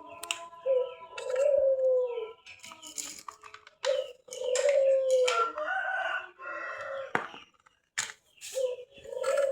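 Rooster crowing three times in long drawn-out calls, with sharp clicks and knocks in between.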